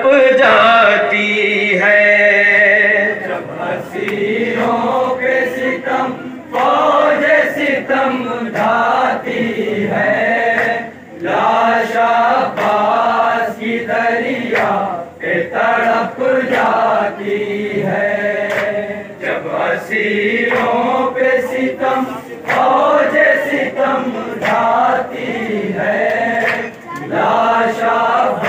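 Men's voices chanting a Urdu noha, a Shia mourning lament, in chorus. Long sung lines break off briefly between phrases.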